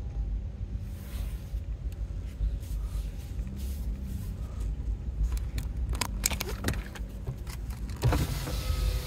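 Low, steady rumble of a car rolling slowly, heard from inside the cabin. Sharp clicks and rattles come over it in the last few seconds, and then a louder hiss.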